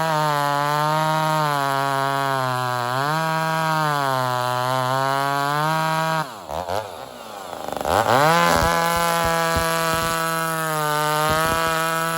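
Ported Homelite XL-76/XL-130 hybrid two-stroke chainsaw running at full throttle with a high steady whine, dipping slightly in pitch now and then under load. About six seconds in the throttle is released and the revs fall toward idle, then it is revved back up to full speed about two seconds later. The owner judges it to be running a tad lean, as it will not drop into four-stroking at full throttle.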